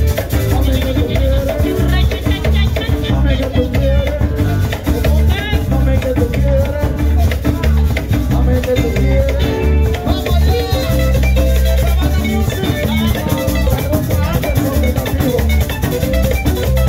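Salsa music from a small live band, with a singer's voice coming and going over a steady bass and percussion beat.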